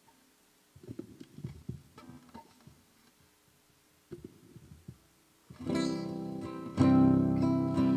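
Faint taps and a few soft notes, then an acoustic guitar begins strumming chords about five and a half seconds in, growing louder a second later: the introduction to a sung hymn.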